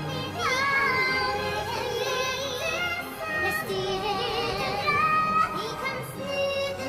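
Female voices singing a song in Norwegian with backing music, run through an 'angel' voice effect that gives the singing a synthetic sound. The sung notes carry a wavering vibrato.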